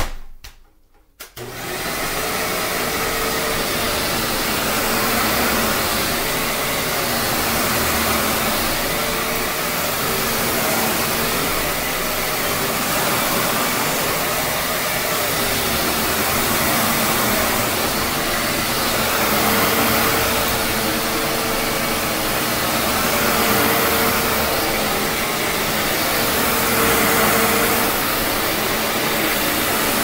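A click, then about a second in a 2007 Hoover WindTunnel Twin Chamber bagless upright vacuum starts and runs steadily, its Maytag motor with a faint hum under the rush of air, as it is pushed back and forth over a hardwood floor.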